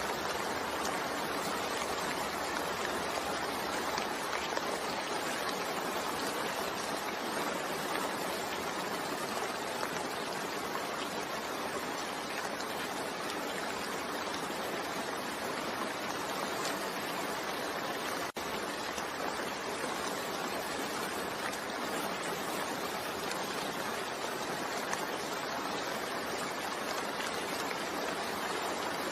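Steady rain falling, an even hiss of drops with no distinct patter, broken by a split-second dip about two-thirds of the way through.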